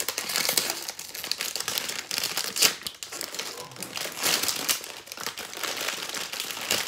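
Plastic snack bag of Maryland Cookies Minis crinkling and rustling as it is pulled open and handled, with irregular sharp crackles.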